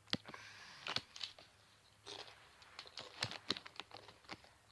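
Faint, irregular clicks and short scraping rustles of small plastic fidget-cube parts being handled and pried at.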